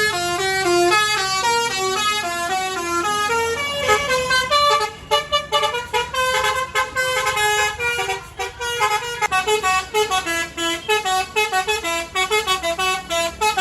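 Bus 'telolet basuri' multi-tone musical horn playing a quick melody of stepped notes, which turn into short staccato notes from about four seconds in, over a low engine hum.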